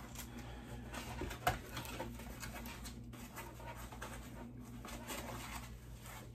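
Small cardboard product box being opened by hand: flaps and inner tray scraping and rustling, with a sharper tap about a second and a half in.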